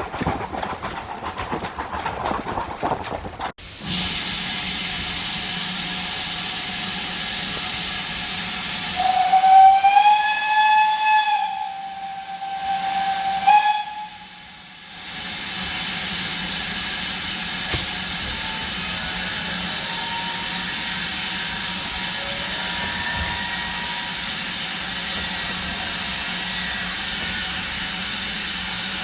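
Steam locomotive whistle, one long blast rising slightly at its start followed a couple of seconds later by a short toot, over a steady hiss of escaping steam. In the first few seconds a train is heard running before the hiss takes over.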